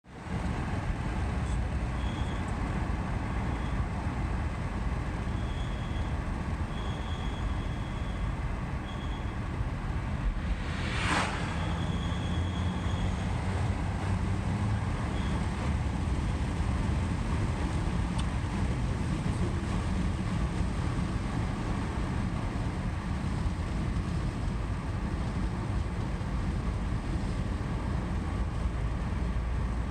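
Audi A4 B9 driving, with steady road and engine noise. A short high-pitched squeak comes and goes repeatedly in the first half, and a sudden burst of noise sounds about eleven seconds in.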